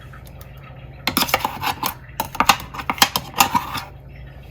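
A spoon scraping and clinking against a mixer-grinder jar while scooping out freshly ground ginger-garlic paste, in three short clusters of clicks and scrapes.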